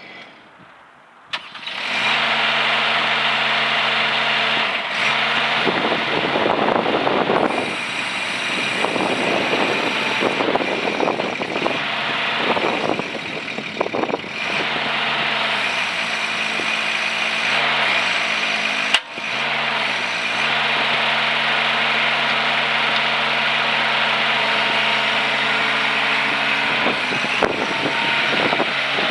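Mini excavator's small engine starts about a second in and then runs steadily. Its note drops and comes back up briefly about two-thirds of the way through, with a sharp click in the middle of it.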